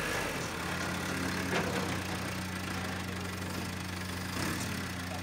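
Heavy diesel engine idling steadily.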